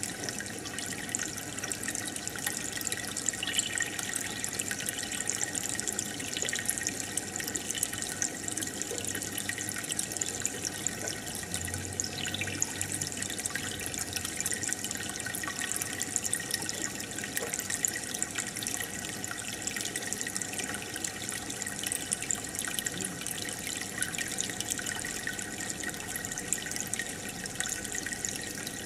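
Aquarium filter and air bubbles: a steady fizzing trickle of water with many tiny bubble pops.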